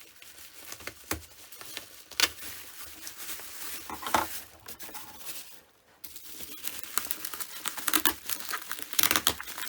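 Plastic wrapping and packing tape crinkling and crackling as they are cut with scissors and pulled open, in irregular bursts, with a brief lull a little past the middle and denser crinkling after it.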